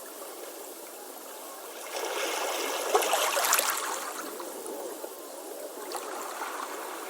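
Ocean waves on a beach: a steady wash of surf, with a wave surging in about two seconds in, breaking with a crackling fizz a second later, then receding.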